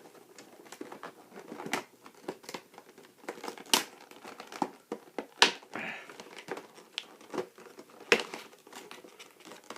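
A toy's cardboard packaging being cut open and handled: irregular crinkling with sharp cracks and snaps, the loudest three spread through the middle and later part.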